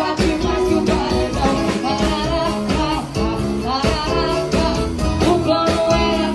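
Live band music with singing over electric guitar, bass and drums, loud and unbroken.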